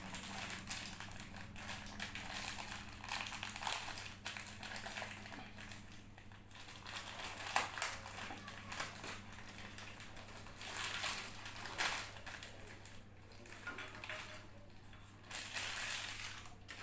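Kerupuk (fried crackers) being broken and crushed by hand, giving an irregular run of crunching and crackling.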